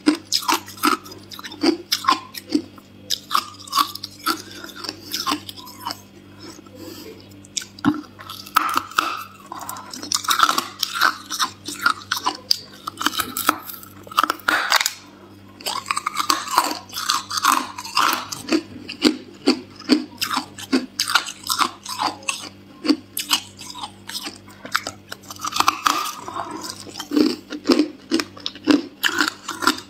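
Hard clear ice being bitten and chewed: a rapid, uneven run of sharp cracks and crunches, easing off briefly about halfway, over a faint steady low hum.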